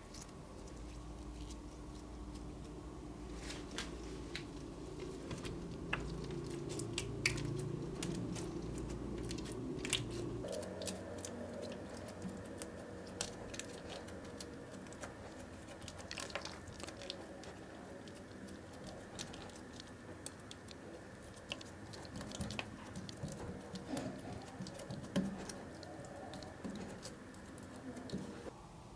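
Green slime being handled, stretched and pressed flat on a tabletop: faint sticky squishes with many small, irregular crackling clicks.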